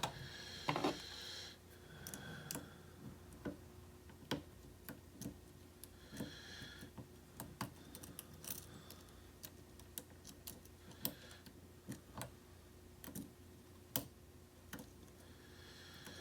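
Lock picking: a pick and tension wrench working in a pin-tumbler challenge lock, giving faint, irregular small clicks about once or twice a second with a few brief scrapes, as the lock that keeps locking up is picked again.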